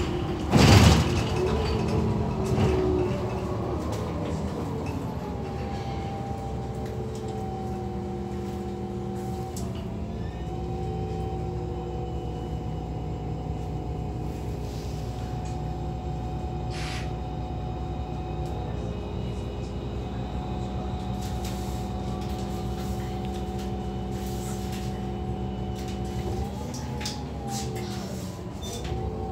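Irisbus Citelis 12 GNV city bus heard from inside the cabin, its natural-gas engine running steadily at idle while the bus stands at a stop. There is a brief loud burst of noise about a second in, and the engine note dips and recovers near the end.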